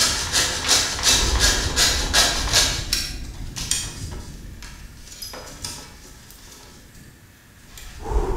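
A small hand fret saw cutting a thin wooden board in quick back-and-forth strokes, about three a second. The strokes fade and go quiet about halfway through, then pick up loudly again near the end.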